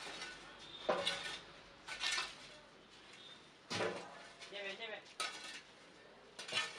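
Several sharp metallic clanks and scrapes, about one a second, as an iron rod pokes and rakes burning firewood and embers under a large biryani cooking pot on a brick wood-fired hearth.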